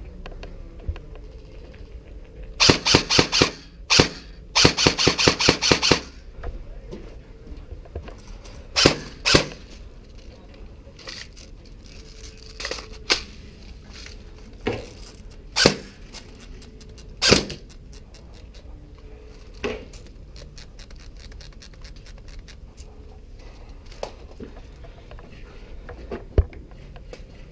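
Airsoft guns firing: two rapid full-auto bursts a few seconds in, then scattered single shots and fainter bursts.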